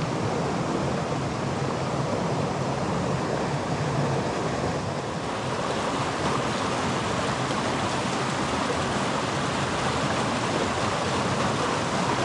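Small mountain stream running over a riffle into a pool: a steady rush of water.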